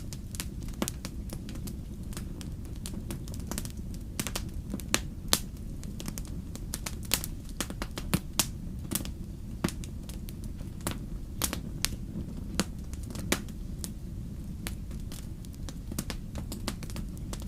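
Wood fire crackling: irregular sharp pops and snaps, a few loud ones standing out, over a steady low rumble.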